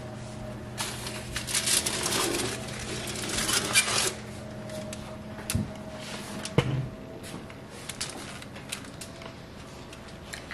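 Foil-lined metal baking tray pulled out of an oven over the wire rack: foil rustling and metal scraping with many small clinks, then two sharper knocks a couple of seconds apart. A steady low hum underneath drops away about two seconds in.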